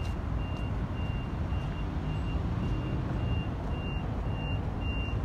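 A vehicle's reversing alarm beeping, a single high tone repeating about twice a second, over a steady low rumble.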